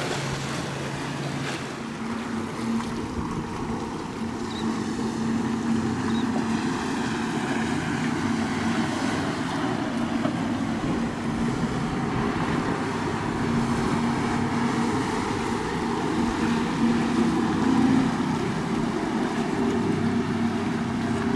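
Motorboat engine running steadily as a boat passes, a continuous drone whose note shifts higher about two seconds in, over a haze of wind and water noise.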